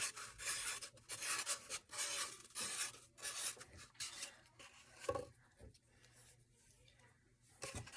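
Sharpie marker drawing on a cardboard tube: a quick run of short scratchy strokes that thins out about halfway through and then stops.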